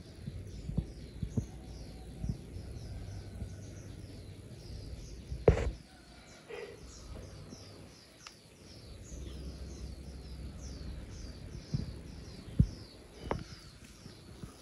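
Birds chirping in a rapid, continuous series of short high chirps, over a low rumble. Several sharp knocks break in, the loudest about halfway through.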